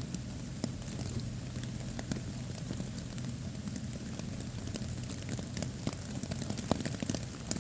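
Rain falling on the fabric of a poncho-tarp shelter overhead: a steady hiss with many small, irregular drop taps.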